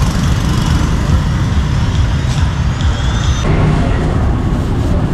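Busy street traffic, motorbike and car engines passing close by as a steady low rumble.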